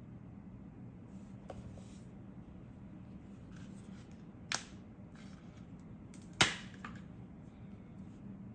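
Two sharp clicks about two seconds apart, the second louder, over a faint steady hum. Before them, a faint light hiss of granulated sugar sprinkled onto cooked black glutinous rice.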